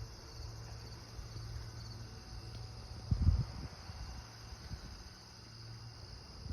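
Insects, likely crickets, trilling steadily and high-pitched over a low rumble, with one dull thump about three seconds in.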